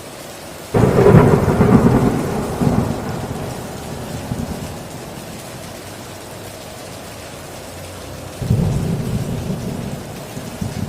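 Heavy rain drumming steadily on a tin roof, with a sudden clap of thunder about a second in that rumbles away over a few seconds, and a second rumble of thunder breaking in near the end.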